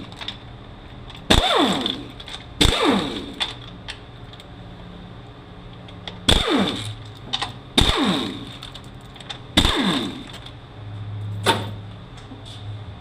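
Power tool spinning out the 10 mm bolts that hold a 5-45RFE transmission's front pump in: five short bursts, each dropping in pitch as it winds down.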